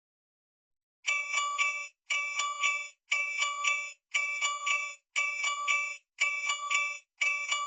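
Alarm clock going off: about a second in it starts a short burst of ringing, chime-like tones that repeats about once a second with brief gaps between bursts.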